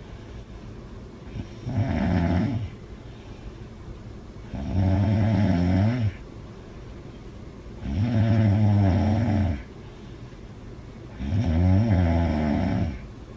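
A young woman snoring loudly: four long snores about three seconds apart, each lasting over a second, with quieter breathing between.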